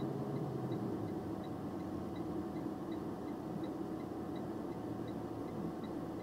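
Box truck's engine running steadily, heard from inside the cab as the truck rolls to a stop, with a faint regular ticking about three times a second.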